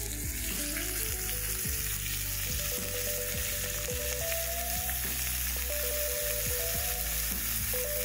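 Cuttlefish pieces sizzling steadily as they sear in a very hot frying pan, just laid in.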